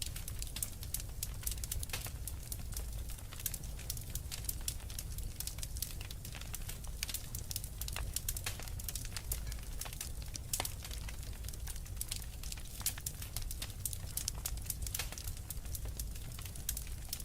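Wood fire crackling steadily, with frequent small irregular pops and snaps over a low rumble of the flames.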